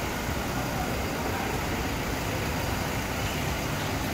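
Steady low rumble and hiss of an indoor parking garage, with no single sound standing out.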